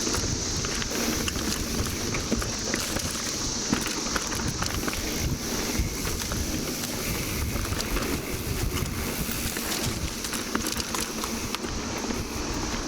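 Mountain bike rolling fast along a dirt trail: rumbling tyre and wind noise with scattered clicks and rattles. Over it runs a steady high-pitched drone from a chorus of 17-year periodical cicadas.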